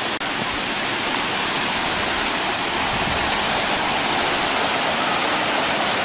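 Steady rush of water from a waterfall and the river's small cascades, a hissing, even noise with a brief dropout just after the start.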